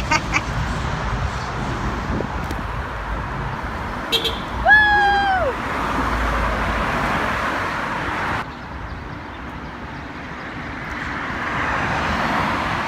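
Steady road traffic noise of cars driving past, with one brief high-pitched tone about five seconds in that drops away at its end. The level falls off suddenly a little past the middle.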